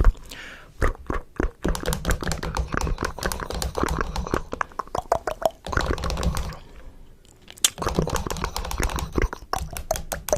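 A rapid, irregular run of sharp clicks and taps, thinning out briefly past the middle.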